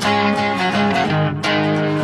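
Intro music led by plucked guitar notes.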